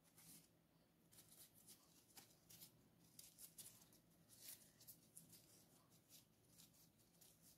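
Faint, repeated rustling of a paper tissue wiping an RC car shock absorber shaft clean, with short strokes throughout.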